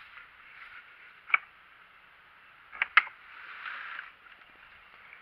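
Metal latch on a wooden fence gate being worked by hand: one sharp click, then two quick clicks about a second and a half later, followed by a soft rustle.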